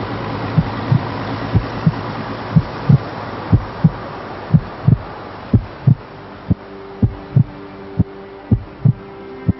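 Soundtrack heartbeat effect: a low double thump repeating about once a second over a steady hiss, with a held synthesizer chord coming in about six seconds in.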